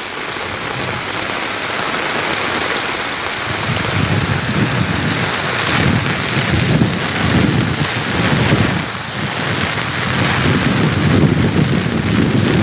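Steady rain hiss, with low, uneven rumbling gusts of wind on the microphone starting about three seconds in.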